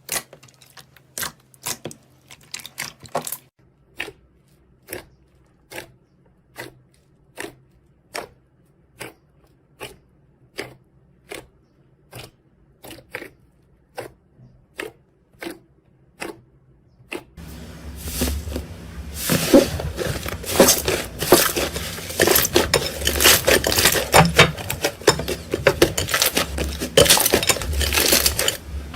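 Slime being handled: crisp clicking pops at an even pace, about three every two seconds. About seventeen seconds in, these give way to louder, continuous crackling and squishing as the slime is worked.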